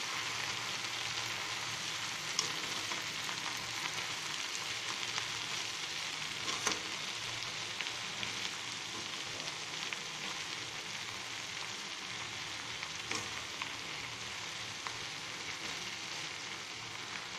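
Fresh mint and coriander leaves sizzling in hot oil in a pan, still holding water from washing, with a steady frying hiss. A spatula stirs them, knocking against the pan a few times.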